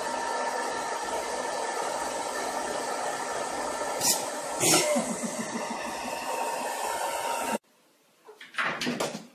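Hair dryer running, a steady rush of air with a steady motor tone, with two sharp clicks about four seconds in. It cuts off suddenly near the end, and a short louder sound follows.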